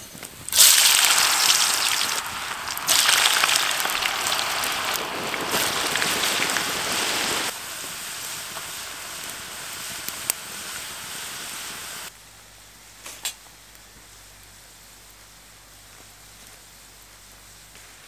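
Thin-cut potato sticks going into hot oil in a steel pan over a wood fire: a sudden loud sizzle that carries on as a steady frying hiss, quieter from about seven seconds in, with a single sharp click near ten seconds. About twelve seconds in, the sizzling stops and only a low background remains.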